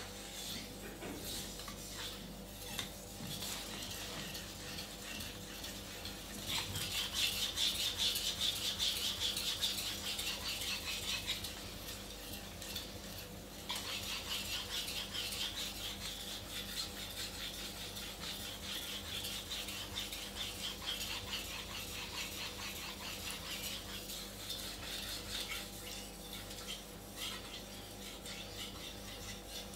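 Global 24 cm steel kitchen knife being sharpened by hand on a whetstone: quick back-and-forth strokes of the blade across the stone, a steady rhythmic scraping, louder for several seconds near the middle.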